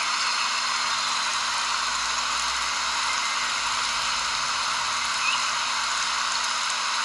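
Steady nature ambience: an even hiss with a few faint, short high chirps here and there.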